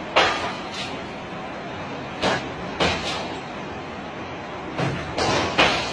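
Suitcases thrown onto a baggage conveyor belt, landing with a string of loud thuds, about seven, some in quick pairs.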